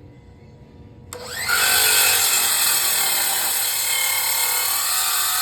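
A handheld power cutting tool, either a circular saw or an angle grinder, starts about a second in. Its motor whines up to speed and then runs steadily as it cuts into a hollow aluminum post.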